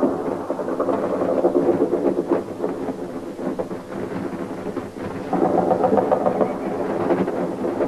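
A night battle heard from a distance: a continuous muffled rumble and crackle of gunfire and shell bursts, swelling louder about five seconds in.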